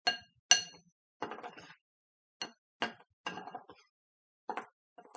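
A mixing utensil clinking and scraping against a bowl as dry sand and cornstarch are stirred together: irregular ringing knocks, about eight in all, some trailing into short scrapes, the loudest about half a second in.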